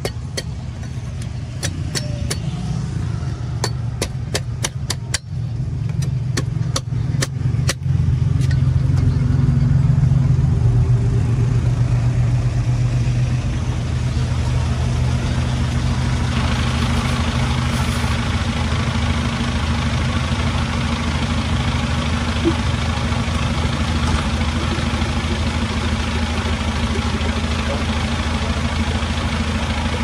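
Cleaver chopping a fresh green coconut on a wooden block: a quick run of sharp chops, about two a second, through the first eight seconds. A vehicle engine idles steadily underneath throughout, and a steady hiss joins about halfway through.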